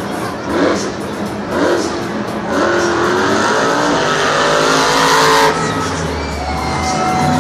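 Zombie monster truck's supercharged V8 engine revving. Short throttle blips come first, then a long climbing rev that cuts off sharply about three-quarters of the way through and settles into a lower rumble.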